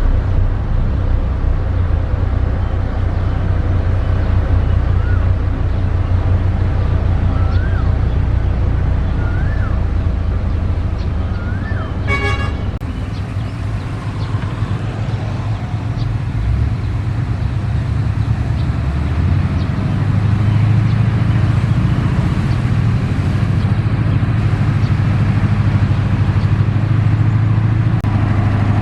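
Heavy diesel construction machinery running steadily with a low engine drone. A short buzzing tone about twelve seconds in. The engine note rises and grows louder about twenty seconds in.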